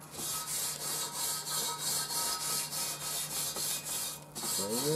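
Wire grill brush scrubbing a cast iron grill grate in quick, even back-and-forth strokes, about four to five a second.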